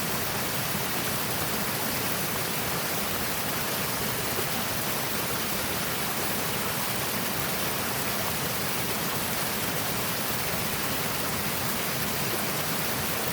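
Seasonal creek running steadily over rocks, a continuous even rush of water.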